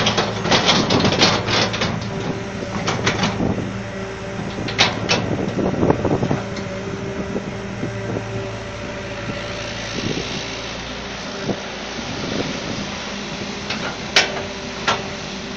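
Hitachi Zaxis excavator's diesel engine running steadily under load as the machine tries to work free of deep mud. There is a cluster of sharp knocks and clanks in the first few seconds and two more sharp knocks near the end.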